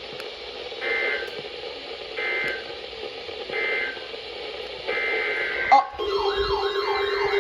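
Emergency Alert System end-of-message data bursts: four short, shrill two-tone digital bursts about a second and a half apart over radio hiss. About six seconds in, a warbling siren-like alarm tone starts.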